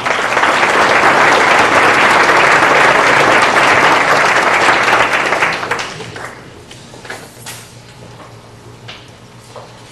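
Audience applauding, dying away after about six seconds.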